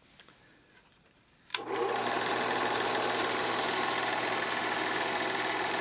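Bell & Howell Autoload 8mm projector switched on with a click about a second and a half in, its motor and film-advance mechanism then running steadily with a fast mechanical rattle over a constant hum, at about normal speed through a solid-state variable speed controller.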